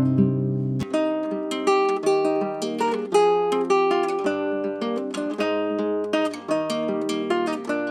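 Acoustic guitar playing, with notes plucked one after another in quick succession.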